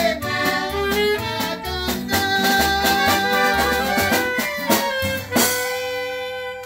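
Norteño band of accordion, saxophone, upright bass and guitar playing over an even bass pulse, closing on a held final chord that stops near the end.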